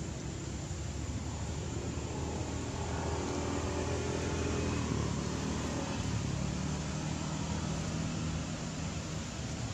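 A motor engine humming steadily under a background hiss, its pitch drifting slowly up and down.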